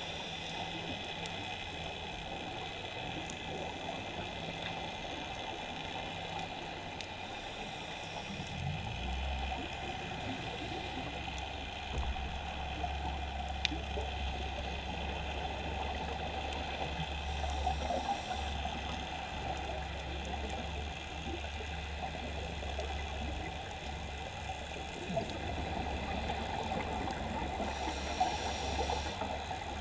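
Underwater ambience of a scuba dive: a steady watery hiss, broken by a few short rushes of exhaled bubbles from the diver's regulator. A steady low hum comes in about a third of the way through.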